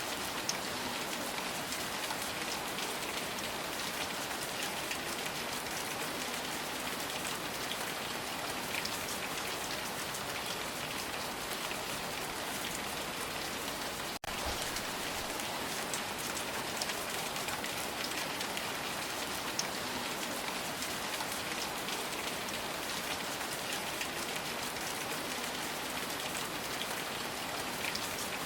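Steady rain falling, an even hiss with many individual drops ticking through it, cut by a momentary dropout about halfway.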